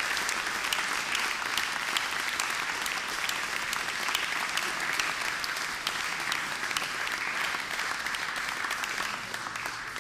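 Audience applauding: dense, steady clapping that begins to fade right at the end.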